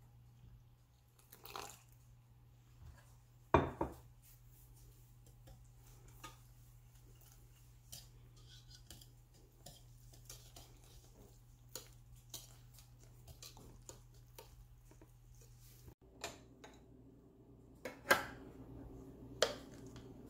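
Wire whisk clinking and tapping against a ceramic mixing bowl while stirring batter, light irregular clicks with a few louder knocks of the bowl, one about three and a half seconds in and two near the end.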